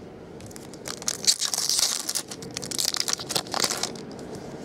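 Foil trading-card pack wrapper crinkling and crumpling in the hands, a dense crackle that starts about a second in and dies away near the end.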